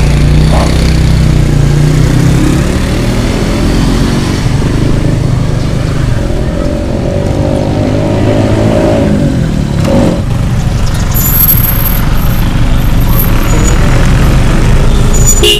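Road traffic: motor vehicle engines running close by, one engine's pitch shifting as it goes past about eight to ten seconds in.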